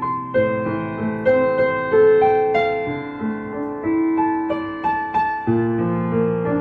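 Calm instrumental keyboard music: a slow melody of struck notes, each fading away, over held chords that change twice.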